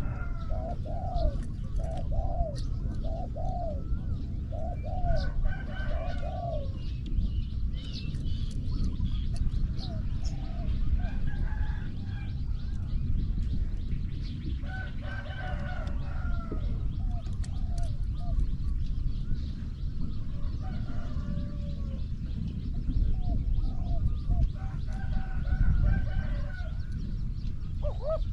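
Spotted doves cooing in repeated phrases of several notes, with pauses between phrases, over a steady low rumble.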